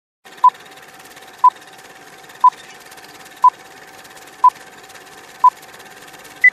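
Electronic countdown beeps in the style of a radio time signal: six short beeps one second apart, then a higher-pitched seventh beep near the end. They sound over a steady hiss and a faint constant hum.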